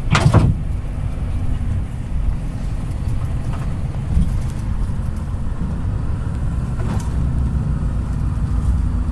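Truck engine running at low revs, heard inside the cab as a steady low drone with road noise. A short loud noise right at the start, and a faint click about seven seconds in.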